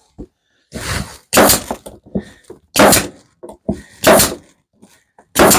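Pneumatic stapler firing staples into pallet wood, a sharp bang about every second and a third, with fainter clicks and knocks between shots.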